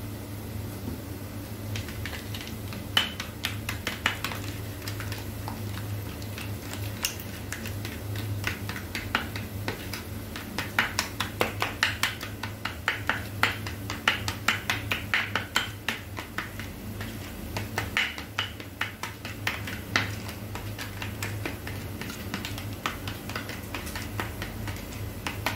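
A spoon beating curd in a bowl: quick, irregular clicks and taps of the spoon against the bowl, thickest about halfway through and thinning out near the end, over a steady low hum.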